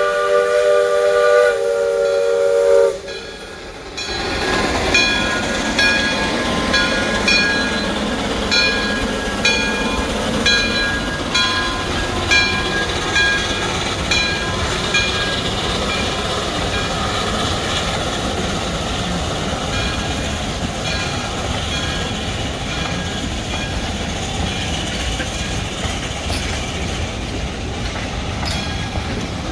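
Lima Shay geared steam locomotive sounding its multi-tone steam whistle for about three seconds, then its bell ringing about once a second and fading out about halfway through. The locomotive and its passenger cars rumble and clatter past on the rails.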